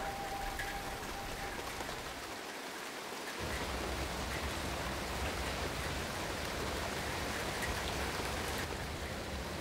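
Steady rain falling, with scattered drip-like ticks. A held tone fades out about a second in, and a low rumble joins about three and a half seconds in.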